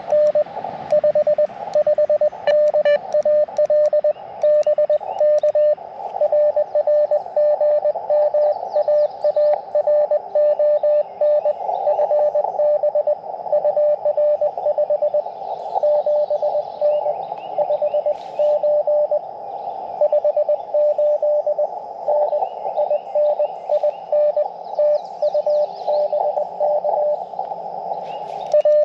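Morse code from an Elecraft KX2 transceiver working 30 meters: a single steady tone keyed in dots and dashes. For the first six seconds the tones are clean; after that they sit inside a band of hiss, the band noise passed through the radio's narrow CW filter.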